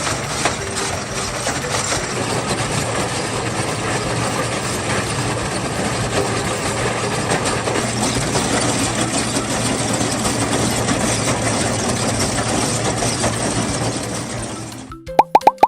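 Heavy engine of a trencher running steadily, with a dense noisy rattle over a low hum. It cuts off suddenly about fifteen seconds in, and a short bright chime begins.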